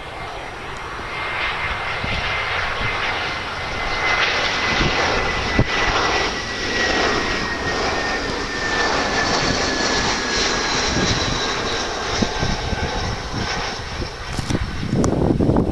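Airbus A320-232's IAE V2500 turbofan engines on final approach: a steady jet rush with a high whine that slowly falls in pitch as the airliner passes. It grows louder over the first few seconds, then holds.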